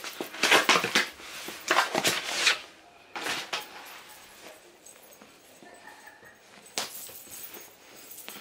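Plastic wrapping rustling and crinkling as it is cut open and a folded fabric blanket is pulled out. There are several loud bursts in the first few seconds, then softer handling noise, with one more rustle near the end.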